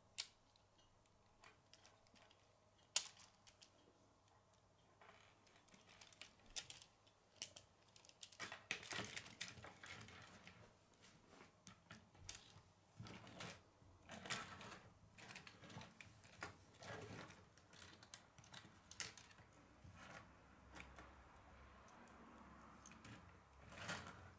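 Plastic K'nex rods and connectors clicking and rattling as pieces are handled and snapped onto a model. Scattered small clicks, with busier stretches of clatter in the middle and near the end; one sharp snap about three seconds in is the loudest.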